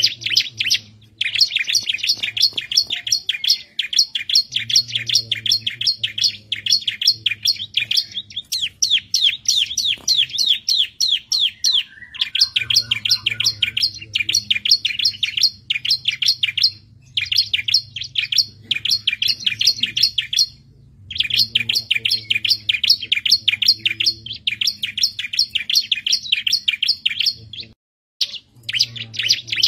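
Bar-winged prinia (ciblek) singing hard: long runs of very fast, high, repeated chirping notes, broken by brief pauses every few seconds.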